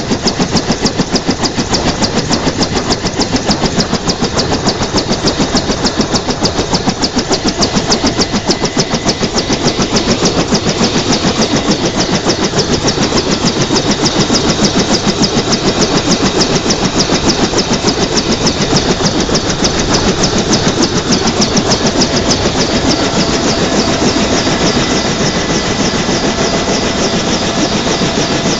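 Bell UH-1 Huey helicopter running on the ground with its rotor turning: a rapid, even blade beat over a steady turbine whine.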